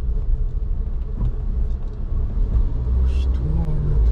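Car engine and tyre rumble heard from inside the cabin as the car rolls slowly through a tunnel, with a brief hiss about three seconds in.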